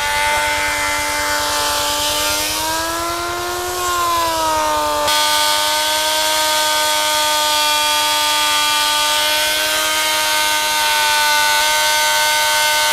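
An electric power tool's motor running steadily with a high whine; its pitch rises slightly and falls back about three to four seconds in, then holds steady.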